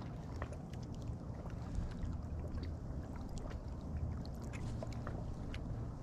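Wind buffeting the microphone in a steady low rumble, with scattered faint clicks and ticks throughout.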